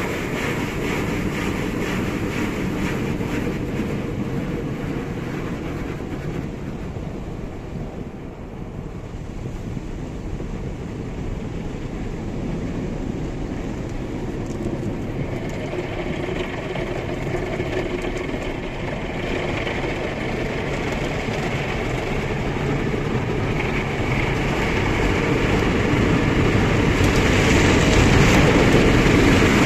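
Automatic car wash heard from inside the car: rotating brushes scrubbing over the windscreen and water spraying on the glass, a steady rumbling wash. It grows louder in the last few seconds as a brush passes across the windscreen.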